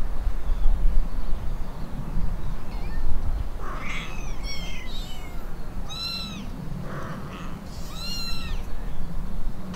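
Kittens mewing: a series of short, high-pitched mews, about five or six, starting about four seconds in, over a low background rumble.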